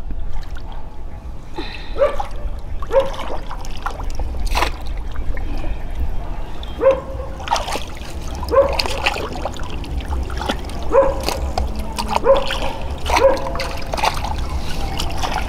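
A dog giving a string of about a dozen short cries, with water trickling and splashing at the same time.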